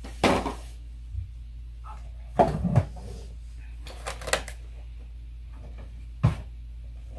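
Boxed toys in cardboard packaging with plastic windows being handled and set down: four short knocks and rustles a second or two apart.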